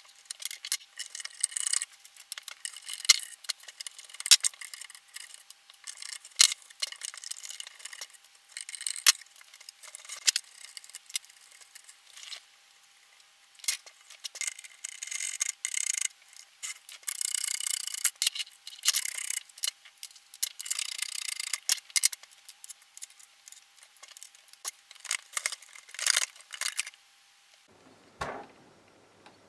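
Hands unfastening and removing a loudspeaker from a vintage tube amplifier cabinet: quick, irregular small metal clicks, rattles of screws and nuts, and scraping and rubbing of parts. A faint steady high tone runs underneath and stops near the end.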